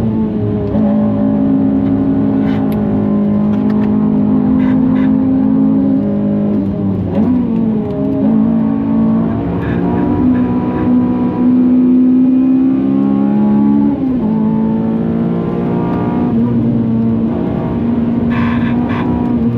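Honda Civic FN2 Type R's K20 four-cylinder engine running hard at high revs, its pitch holding level for stretches and dipping briefly twice as the car shifts or lifts.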